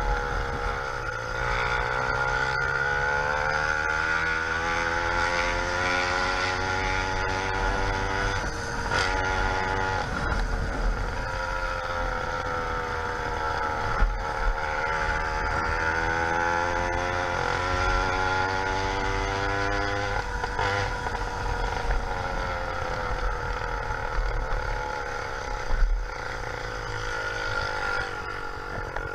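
YD100 two-stroke motorized-bicycle engine fitted with a window piston, running steadily, its pitch rising and falling slowly several times as the throttle is opened and eased off. Two brief sharp sounds stand out, about halfway through and near the end.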